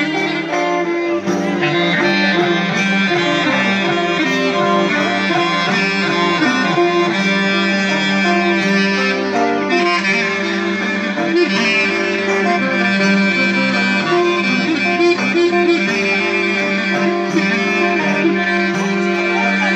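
Live Epirot folk band playing a traditional dance tune through loudspeakers: a wavering clarinet melody over a laouto and a frame drum.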